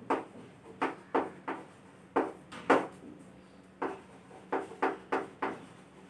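Chalk writing on a chalkboard: about a dozen short taps and scratches at an uneven pace as words are written.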